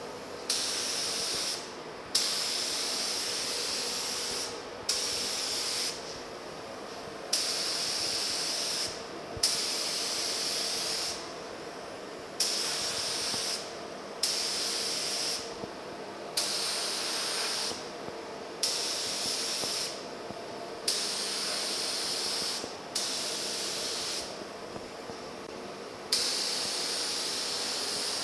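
Small gravity-feed spray gun spraying clear coat in short hissing passes, each one to two seconds long and starting and stopping sharply with the trigger, about a dozen in all.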